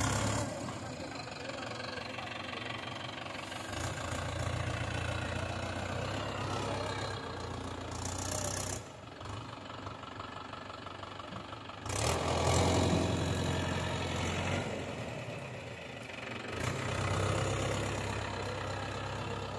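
Farm tractor's diesel engine running while it drags a rear land leveler through loose soil. It swells louder three times, about 4, 12 and 17 seconds in.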